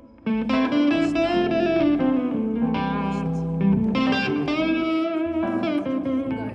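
Electric guitar playing a lead line with bent notes over a band backing in a slow blues-rock ballad. It comes in after a short dip right at the start.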